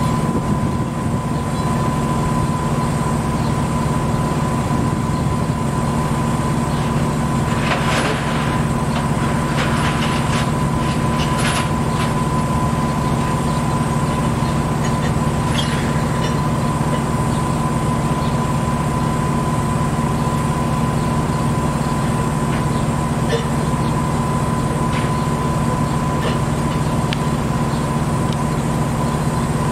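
Diesel engine of a railway breakdown crane running steadily, a low drone with a constant high whine over it. A few light clanks come between about eight and twelve seconds in.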